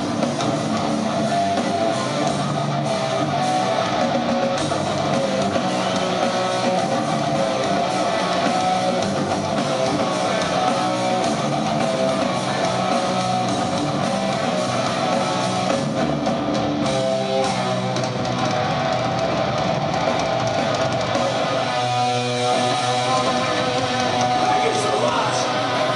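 Live heavy rock band playing loud distorted electric guitars in an instrumental passage, with no vocals.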